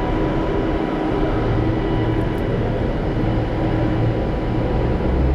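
Idling bus: a steady mechanical drone with a low hum and a faint high whine.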